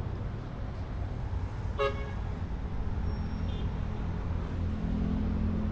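Wind buffeting the microphone with an uneven low rumble, and a short horn-like toot about two seconds in.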